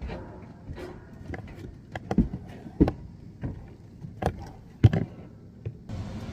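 A series of sharp knocks and clacks, four or five of them loud, from hands and tools on an air-conditioning unit's metal panels. Near the end a steady running noise from a unit that has kicked on comes in.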